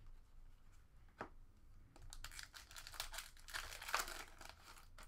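Foil wrapper of a Fleer Showcase hockey card pack being torn open and crinkled by hand: a single click about a second in, then a run of rips and crackles through the second half.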